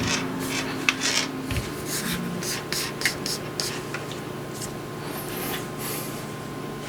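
Hands working a charging cable and heat-shrink tubing: a run of short rustling and scraping noises with a few sharp ticks, thinning out after about four seconds, over a faint steady hum.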